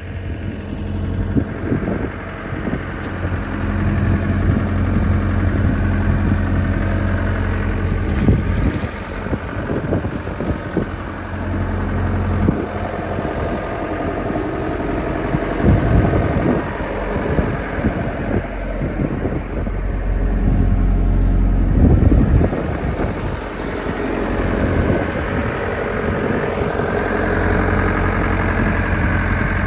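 Takeuchi TB175 compact excavator's diesel engine running, its level rising and falling, with occasional short knocks and clanks.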